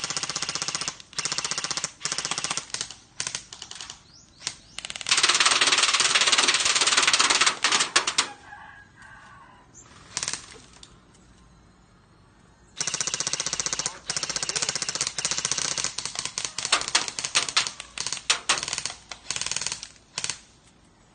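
Airsoft BB guns firing full-auto bursts, a rapid rattle of shots in runs of one to several seconds. The loudest, densest burst comes about five seconds in, and after a lull of a few seconds the firing picks up again.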